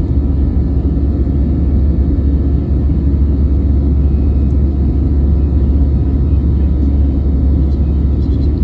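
Steady low rumble of an airliner cabin, with jet engine and airflow noise, as heard from a passenger seat during or after takeoff.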